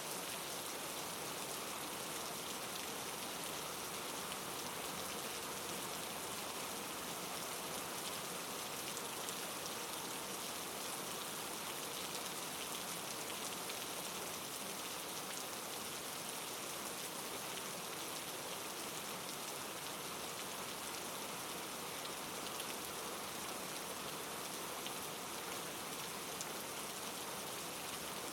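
Steady rain falling, an even patter of raindrops with no pauses or changes.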